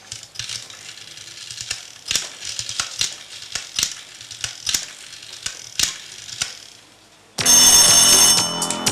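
A run of irregular sharp clicks, about one or two a second. A little over seven seconds in, a much louder ringing sound cuts in, followed by music.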